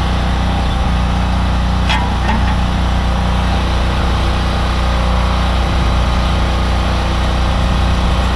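A steady, unchanging engine hum at a constant pitch, with one faint metallic click about two seconds in.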